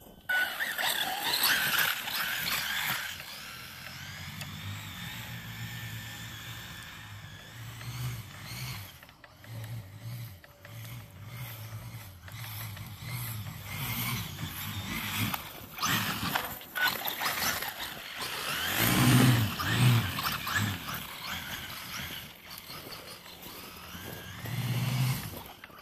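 Traxxas Slash monster-truck conversion's brushless 2200kv motor on a Castle Mamba Monster 2 controller and 4S battery, whining up and down in pitch as the RC truck speeds up and slows while its tires dig through snow. It is loudest at the very start and again about two-thirds of the way through.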